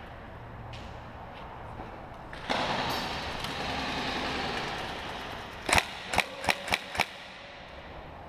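Five sharp shots from an electric airsoft gun, fired one at a time over about a second and a half. Before them there is a stretch of steady rustling noise.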